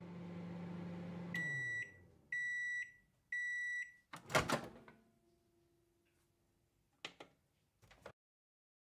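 Microwave oven running with a steady hum that winds down as it stops. Three beeps follow to signal the end of cooking. Then comes a loud clattering click of the door latch as the door opens, with a couple of softer clicks near the end.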